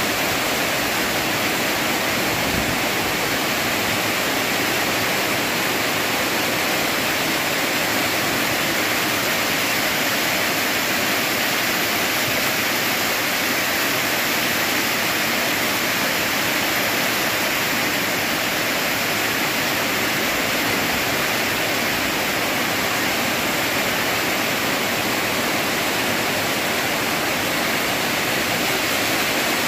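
Rain falling steadily: an even, unbroken hiss with no pauses or single drops standing out.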